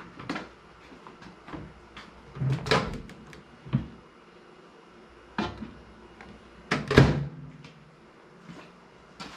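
A few separate sharp knocks and clunks, the loudest about seven seconds in: a bowl of water being set inside a countertop microwave and the microwave door being shut.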